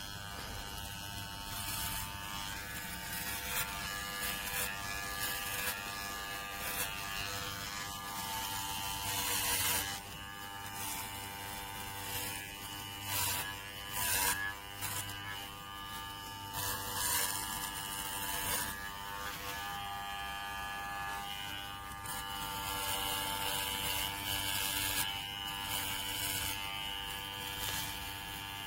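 Electric pet hair clipper running with a steady motor buzz, with brief scratchy noises now and then.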